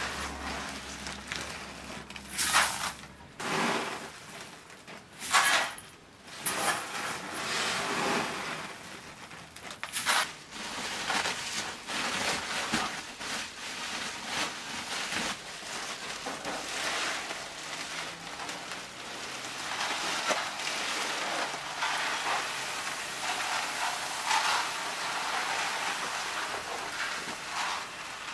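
Unhusked rice grain rustling in a plastic bin, first in several separate scrapes and scoops, then poured from a woven plastic sack as a long steady hiss of running grain.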